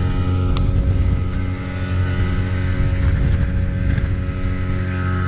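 Small speedboat's engine running steadily at speed, a constant drone with no change in pitch.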